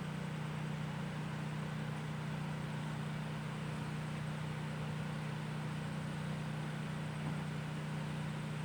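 Distant machinery running with a steady low hum under a faint even hiss.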